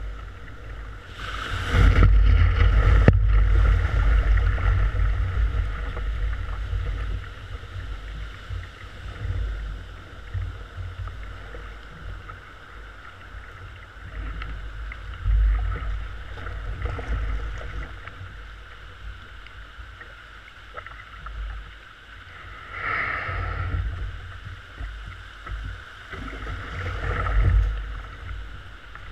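Surf whitewater rushing and splashing around a kayak riding a breaking wave in, with heavy wind rumble on the microphone. It is loudest a couple of seconds in, easing off, then surges of rushing water come back twice near the end.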